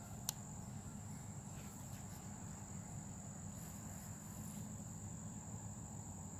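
Insects trilling: a continuous high-pitched steady tone over a low background hum, with one sharp click just after the start.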